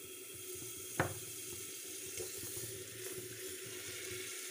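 Butter sizzling with a steady hiss as it melts in a hot pressure cooker, with one sharp knock about a second in.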